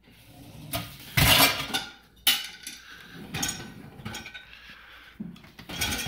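Plastic containers, lids and pans clattering in a Bosch dishwasher's wire upper rack as the rack is pushed back in, with a sharp clack about two seconds in. The dishwasher door shuts at the very end.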